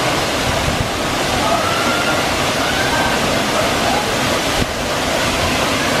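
Waterfall plunging into a rock pool: a steady, loud rush of falling water.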